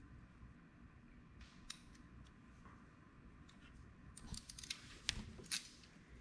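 Faint clicks of a ratcheting crimping tool squeezing heat-shrink butt connectors onto radiator fan wires: one click a little under two seconds in, then a quick run of clicks from about four seconds in.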